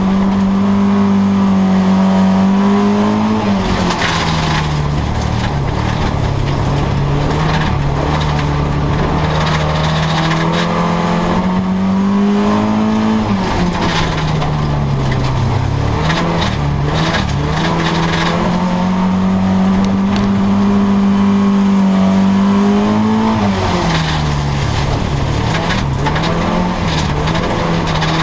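Race car engine heard from inside the stripped cabin while racing on a dirt track. Its pitch climbs along each straight and drops sharply three times as the driver lifts off for the corners, with scattered knocks and rattles throughout.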